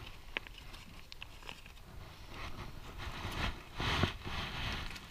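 Aluminium foil crinkling and rustling as it is handled around a fish, loudest about four seconds in, over a low steady rumble.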